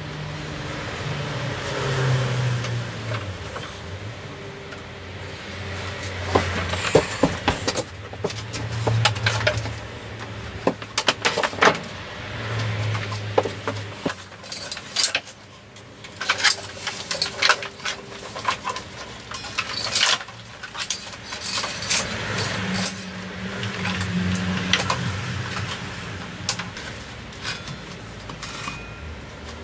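Irregular clanks, clinks and knocks of metal tools and gear being picked up, moved about and rummaged through, with a run of louder sharp clacks partway through.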